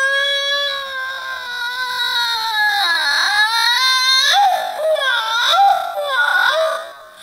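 A woman's acted crying wail, a long held note that slides slowly down in pitch, then breaks about four seconds in into short, wavering sobs that rise and fall.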